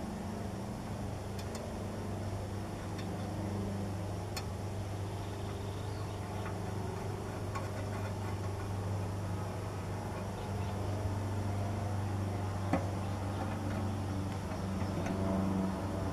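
A steady low mechanical hum, with a few faint clicks as a plastic direct-vent terminal cap is screwed onto its collar by hand.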